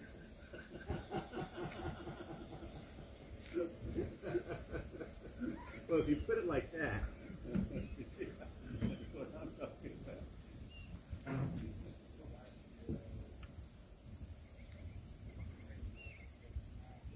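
Insects, crickets among them, chirring steadily in a high, even drone, with faint voices of people talking under it.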